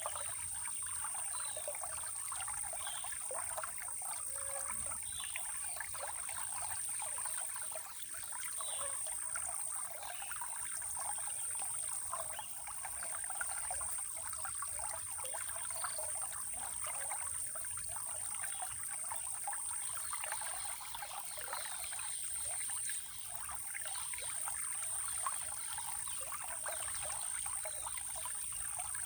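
Small stream of water trickling and splashing steadily, with a continuous high-pitched insect buzz over it and a few faint, short bird chirps scattered through.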